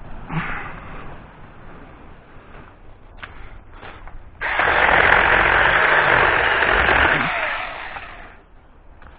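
Saker battery-powered electric mini chainsaw running in a cut through a branch: it starts suddenly about four seconds in, runs steadily for about three seconds, then winds down. A few light knocks come before it.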